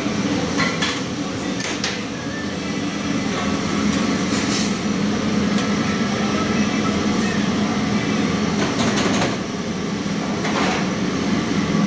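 Steady mechanical hum and rush of commercial kitchen equipment, with a few short clicks and knocks scattered through it.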